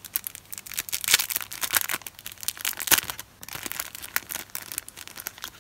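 Plastic wrapper of a jewellery polishing cloth crinkling and tearing as it is opened and the cloth is pulled out, a dense run of irregular crackles with a few louder ones.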